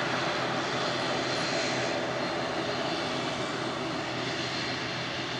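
Airliner engines running steadily as the aircraft taxis, a constant rushing noise with a low steady hum, easing off slightly near the end.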